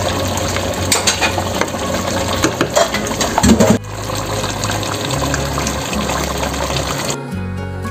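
Thick beef stew simmering and bubbling in a pot while a spoon stirs it, with scraping and a few knocks of the spoon against the pot. The bubbling cuts off abruptly about four seconds in, and background music with a steady bass line plays underneath.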